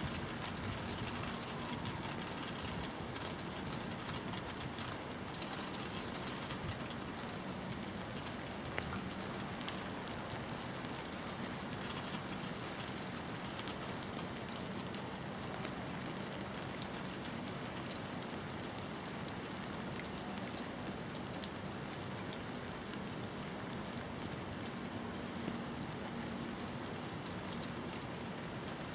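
Steady rain falling: an even hiss with a few sharper drips now and then.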